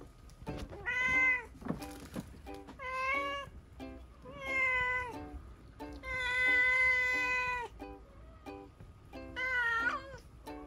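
Tabby cat meowing five times, each call a few seconds apart. The fourth call is the longest and loudest, about a second and a half. Light plucked background music plays under the calls.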